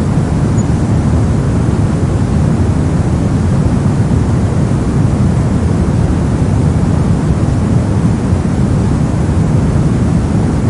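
Brown noise: a steady, even hiss weighted heavily toward the low end, so it sounds deep and warm, with no change or events.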